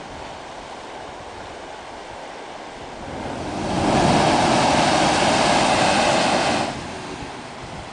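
Limestone sea blowhole erupting: a loud rush of air and sea spray through the rock builds about three seconds in, holds for about three seconds and cuts off suddenly, over the steady wash of surf.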